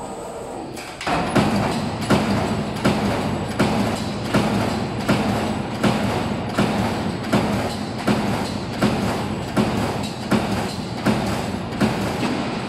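Machine hole-punching metal in a regular cycle, a sharp punch stroke about every three-quarters of a second over a steady machine hum.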